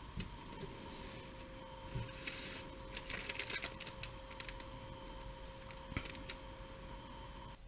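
Clear plastic wrapper around a small disposable plastic spoon being handled and peeled open by hand: a crinkling, crackling run of rustles, densest in the middle, then a few scattered crackles. A faint steady hum sits underneath and stops just before the end.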